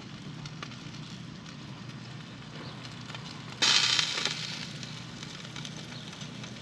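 Hamburger patties sizzling on the grate of a charcoal-fired portable grill, a steady hiss with small crackles. About three and a half seconds in, a louder hiss flares for about half a second.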